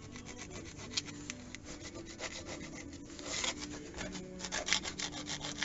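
Plastic scraper rasping in quick, short strokes against the factory undercoating of a MKIV Toyota Supra's rear wheel well, working built-up tyre rubber off. The strokes grow faster and louder from about four seconds in.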